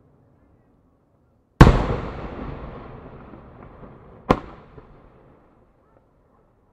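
Two aerial firework shells bursting. The first, about a second and a half in, is a sharp loud bang with a long rolling echo that dies away over about two seconds. The second bang follows a little under three seconds later and fades quickly.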